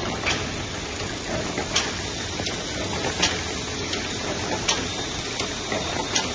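Sulby Compact 88 perfect binder running, its carousel of book clamps travelling around the oval track: a steady mechanical running noise with a sharp metallic click about every one and a half seconds and fainter ticks in between.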